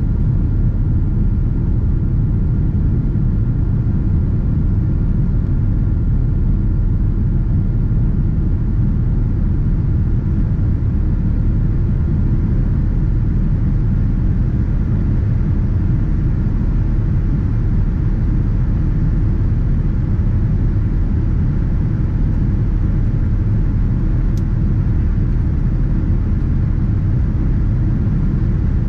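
Steady low rumble of cabin noise inside a Boeing 787-9 in its climb after takeoff: the Rolls-Royce Trent 1000 turbofans at climb power and air rushing past the fuselage.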